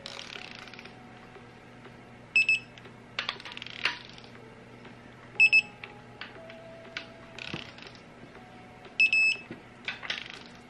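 Digital torque wrench beeping in three short bursts of rapid high pips as camshaft cap bolts on a 2JZ head are pulled up towards the set torque, about every three seconds. Between the bursts come sharp clicks and short rattles of the wrench and socket on the bolts.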